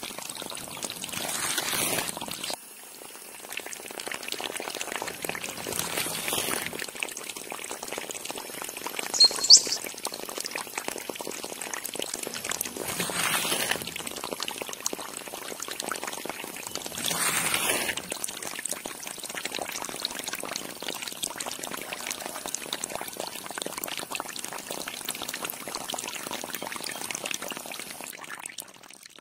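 Water pouring and splashing, swelling louder several times, with a brief high whistle about nine and a half seconds in.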